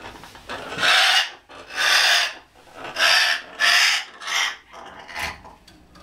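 A parrot restrained in a towel giving harsh, rasping squawks about once a second.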